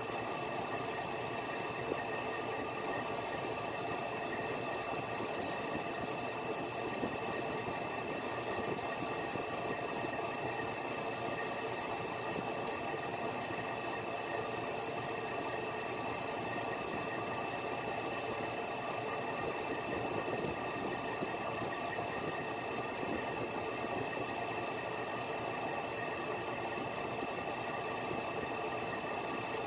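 Fishing boat's engine running steadily while the boat is under way, an even drone with a few constant high whining tones and no change in pace.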